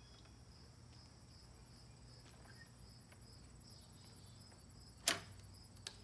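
Faint insects chirping in a steady, pulsing high trill. About five seconds in there is a sharp click, then a smaller one just before the end.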